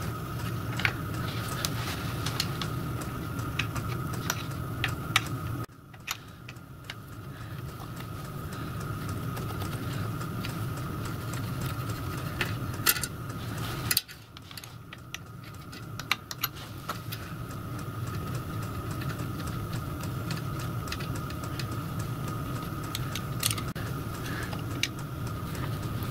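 Scattered light metallic clicks and taps of a spanner and screwdriver working on the brass pipe unions and mounting bolts of a miniature steam locomotive's hand pump, over a steady low hum with a faint high tone. The hum drops away suddenly about 6 s and 14 s in and swells back.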